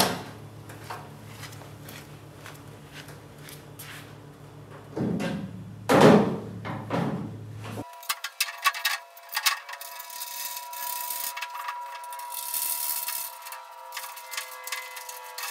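Metal parts and hand tools being handled while fitting heater channels to a VW Beetle chassis: a sharp knock at the start, heavier clanks around six seconds in, then a run of small clicks from a wrench working the mounting bolts.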